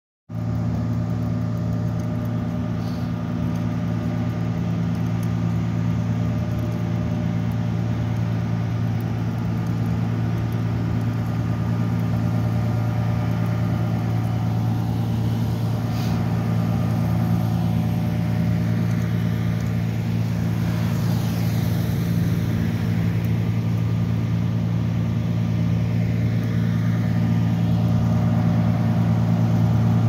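Heavy work truck's engine idling steadily, a low even hum that grows louder near the end.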